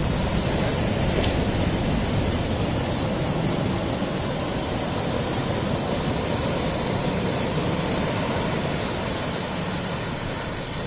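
Surf breaking over rocks and onto a sandy beach, a steady, loud rush of waves.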